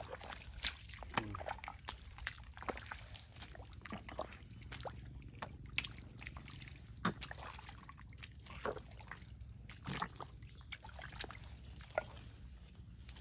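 Bare feet wading through deep, soft mangrove mud: irregular wet squelches, sucking pops and slops as each leg is pulled out and set down.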